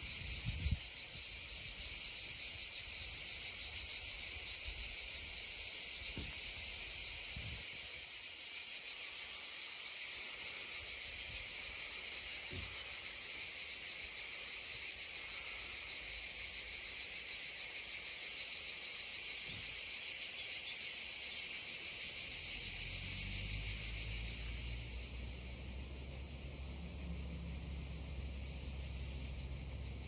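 Cicadas droning in a dense, steady, high-pitched chorus. It eases slightly about three-quarters of the way through, as a low rumble comes in underneath.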